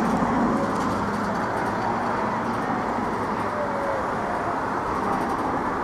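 Steady low rumble of traffic noise with no distinct events.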